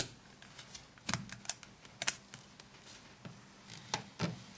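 Light, sharp plastic clicks and snaps at irregular intervals as the plastic clips of a Nokia 6680 mobile phone's antenna module are unlocked and the antenna is worked free of the frame. There is a cluster about one and two seconds in, and two more clicks near the end.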